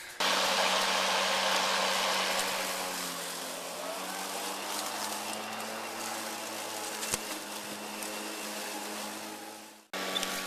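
RYOBI 40V brushless cordless lawn mower running and cutting grass: a steady electric motor and blade whir with a constant hum. It is louder for the first few seconds, then steadier and softer, and fades out shortly before the end.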